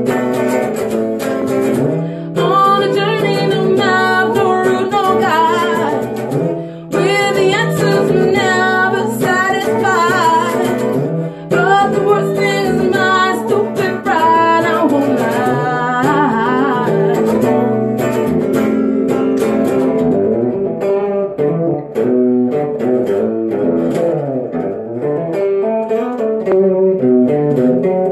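A woman singing with vibrato over her own strummed and picked guitar in a live solo song. The voice is strongest in the first half and drops out for stretches later, leaving the guitar playing on.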